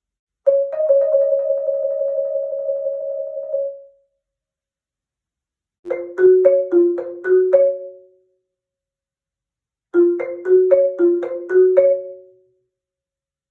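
Marimba playing an iPhone ringtone: one note rolled with quick repeated mallet strokes for about three seconds, then a short phrase of fast notes alternating between two pitches, played twice with a pause between.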